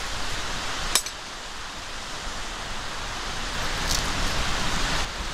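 Steady outdoor rushing noise, with a sharp click about a second in and another about four seconds in.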